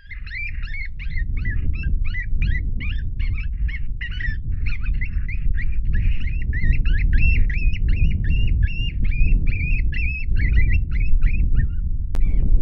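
Strong wind buffeting the microphone in gusts, with a run of short, regular honking calls, about three a second, that stops shortly before the end.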